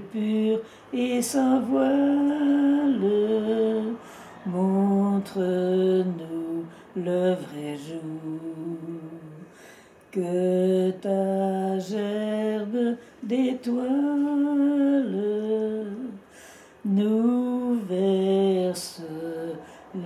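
An elderly woman singing a song alone, without accompaniment: one voice holding notes in phrases, with short breaks between them.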